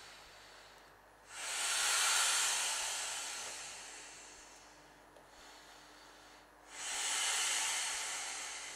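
Breaths blown by mouth into the valve of an inflatable clownfish pool toy: two long, hissing exhalations, one about a second in and one near the end, each starting strongly and fading away over a few seconds, with a short pause for breath between.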